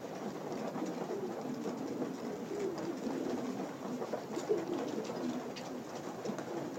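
Racing pigeons in their loft cooing, many birds at once, their low calls overlapping without a break.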